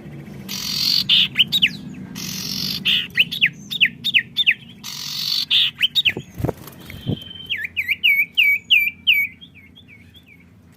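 Songbirds singing back and forth in lively song: quick series of hooked, whistled notes, broken up three times by harsh hissing chatter. The song thins out near the end.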